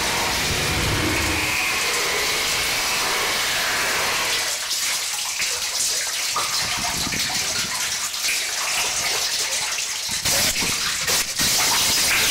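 Harsh noise electronics: a dense wall of hissing static that, about four and a half seconds in, thins into a choppy, crackling texture, with sudden cut-outs and jumps near the end.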